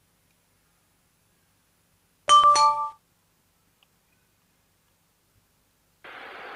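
A short electronic two-note chime about two seconds in, the second note lower, ringing out within about a second. Near the end a steady hiss comes in.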